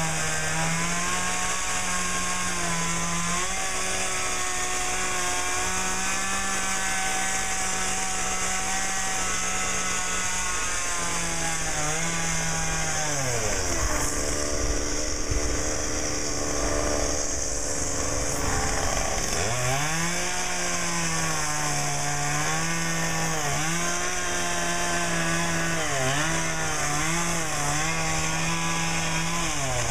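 Two-stroke chainsaw carving wood, running at high revs. Its pitch drops to a lower speed about twelve seconds in and rises again around nineteen seconds. After that the revs dip and rise repeatedly.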